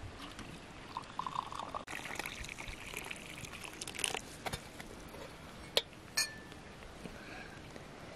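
Tea poured from a metal teapot into small glass cups, a steady trickling stream. The stream stops a little after four seconds in, followed by a few sharp clicks, one with a brief ring.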